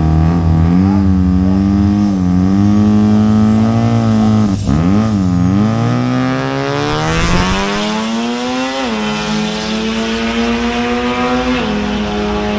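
Drag racing car's engine revving in uneven blips, then climbing in revs for a few seconds from about six seconds in, with a drop in pitch around nine seconds and again near the end, typical of gear changes.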